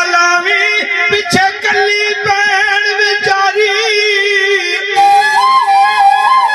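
A man singing a Punjabi Sufi kalam through a microphone in long, wavering held notes, over a rhythm of low strokes. About five seconds in, the voice stops and a steady instrumental melody carries on, stepping up and down.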